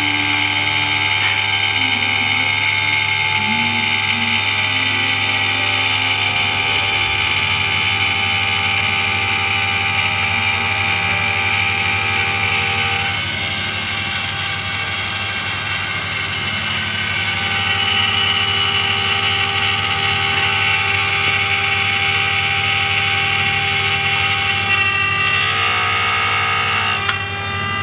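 Mini CNC machine's high-speed spindle whining steadily as it mills a lock pocket into an aluminium door profile. The sound drops a little about halfway through and rises again a few seconds later, with one sharp click near the end.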